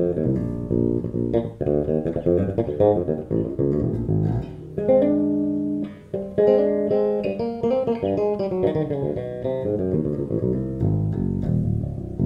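Six-string electric bass played solo through its bridge pickup alone, in dual-coil mode, with the preamp EQ bypassed: a run of plucked notes with a held chord about five seconds in.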